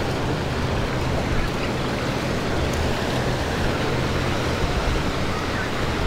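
Steady wash of ocean surf, with wind rumbling on the microphone.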